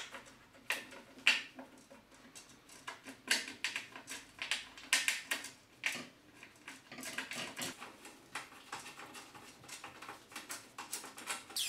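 Irregular small metal clicks and scrapes: cap head screws being fitted by hand through a table extension into the steel body of a table saw.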